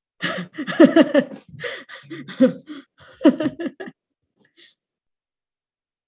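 A woman laughing heartily in a run of breathy bursts lasting about four seconds, heard over a video call.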